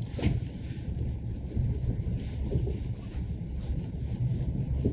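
Steady low rumble of a Mitsubishi L200 pickup's engine and tyres, heard from inside the cab while driving slowly off-road, with a brief click about a quarter-second in.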